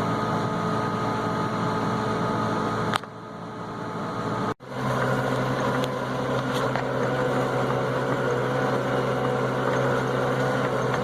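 Tractor engine running steadily. The sound drops away about three seconds in and breaks off sharply a moment later, then a steady engine hum with a strong low drone carries on.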